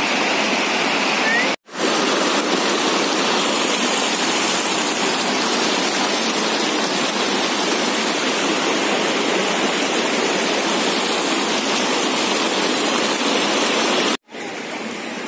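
Brown floodwater rushing fast over a road and through a lane, a steady, loud rush of turbulent water. It breaks off for a moment about a second and a half in and again near the end, and is a little quieter after the second break.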